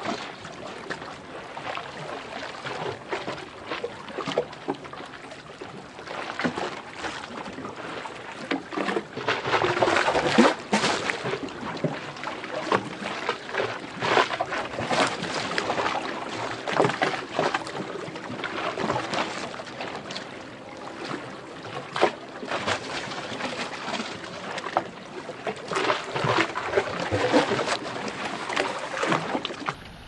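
River water lapping and splashing irregularly against a concrete embankment and rocks, with a faint steady hum in the middle.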